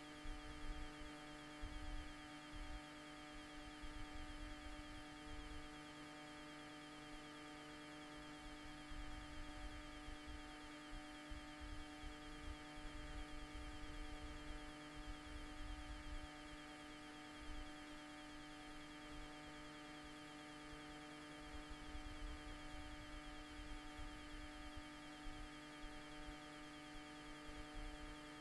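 Steady electrical hum made of several fixed tones, the strongest a low drone. A higher tone cuts in and out every few seconds. Under it there is low, irregular rumbling.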